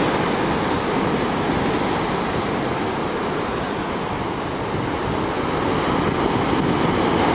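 Heavy ocean surf breaking and washing over rocks below a cliff, a continuous rushing wash of water that grows louder near the end as another wave breaks.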